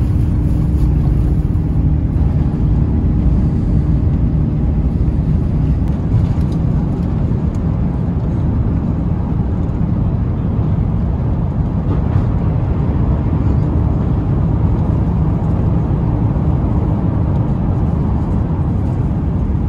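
Airbus A350-900 cabin noise during takeoff: a loud, steady, deep rumble from the Rolls-Royce Trent XWB engines at takeoff thrust.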